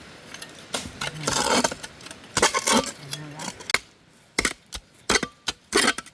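A digging tool striking stony ground: a string of sharp knocks and scrapes, several of them close together in the second half, as metal hits soil and stones.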